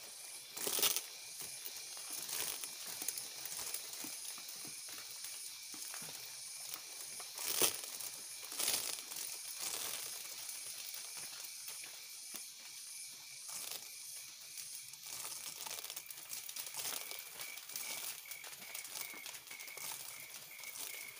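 Dry palm fibre and leaves rustling and crackling as hands work at the flower or fruit stalk of an aren (sugar) palm, with a few sharp snaps, three of them standing out.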